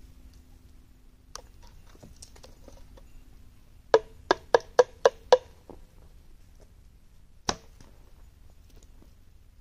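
Six sharp taps in quick succession, each with a short ringing note, from a hand tool knocking against the clay board and grate while working wet clay. A single similar tap follows about two seconds later.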